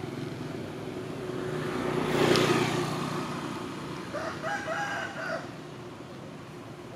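A vehicle passes on the road, its noise swelling and fading about two seconds in. About four seconds in, a rooster crows: a call of several short pitched notes lasting just over a second.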